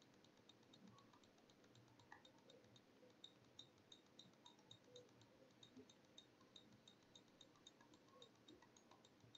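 Near silence with faint, evenly spaced mouse clicks, about three a second, as the on-screen potentiometer is stepped.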